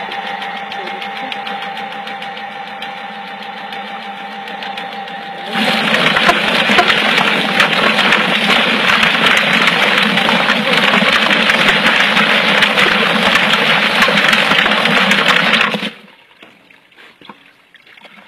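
Homemade bucket-type chicken plucker, a spinning plate with rubber plucking fingers, running with a steady motor hum. About five seconds in, a much louder, dense clattering and spraying starts as the scalded chicken tumbles against the fingers under a hose spray. It cuts off suddenly a couple of seconds before the end.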